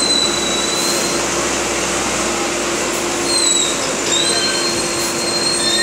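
Wheel loader and hopper machinery running: a steady engine hum and noise under a high, shrill metallic squeal that wavers slightly in pitch.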